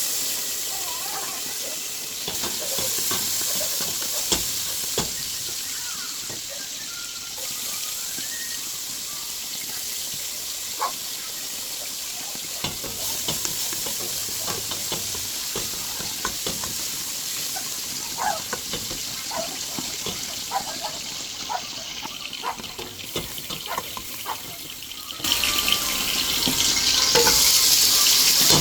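Kitchen cooking sounds: a steady hiss with scattered short clinks of a utensil against a pot or pan, the hiss growing much louder near the end.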